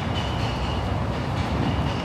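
Steady low rumble of a heavy vehicle or train, with a faint high whine coming and going.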